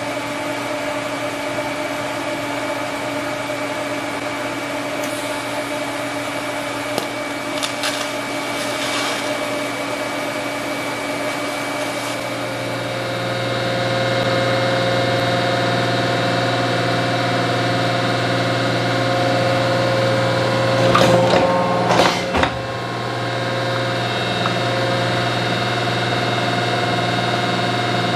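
A steady machine hum made of several held tones over a low drone, shifting to a new set of tones about 13 seconds in. A few sharp metallic knocks come close together about 21 to 22 seconds in.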